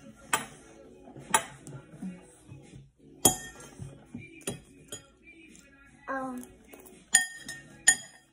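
Metal spoon clinking against a ceramic bowl while scooping rice: about seven sharp, ringing strikes at irregular intervals, the loudest about three seconds in and two close together near the end.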